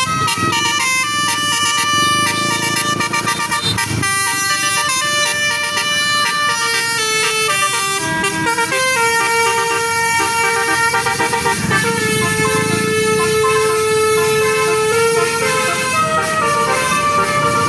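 Basuri telolet bus horn, a 12-note melody horn, playing a tune: a run of steady horn notes changing pitch in steps, several sounding at once, with one long held note about twelve seconds in.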